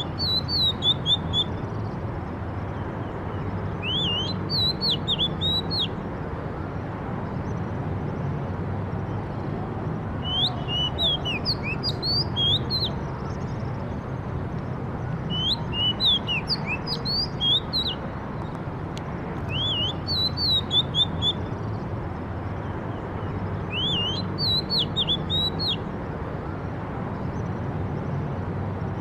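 A songbird singing short phrases of quick, high, upward-sweeping chirps, repeated every few seconds, over a steady low background hum.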